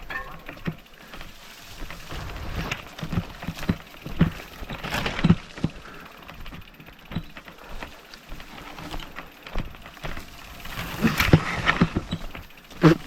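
Mountain bike rattling and knocking over a rough, rocky trail: irregular clicks and clatter, with louder knocks about five seconds in and again near the end.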